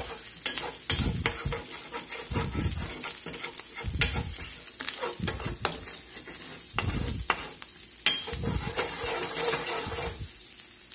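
Ground pork sizzling as it fries with blackening seasoning in a stainless steel skillet, while a metal spoon stirs it and scrapes the stuck spices off the pan bottom in repeated strokes, with sharp clinks of the spoon on the pan now and then.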